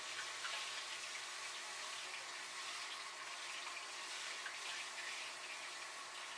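Hot oil sizzling steadily in a fryer, with faint crackles through the hiss.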